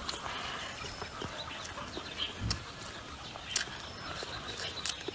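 Irregular crunching clicks of someone eating crispy food, with short high bird chirps repeating about every second and a half.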